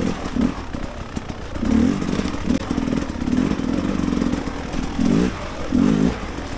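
Dirt bike engine revving in repeated short bursts of throttle, its pitch rising and falling several times as the bike is ridden over rough trail.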